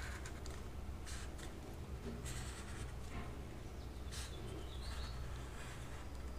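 Felt-tip marker drawn along paper in short strokes, a faint scratching, over a steady low hum.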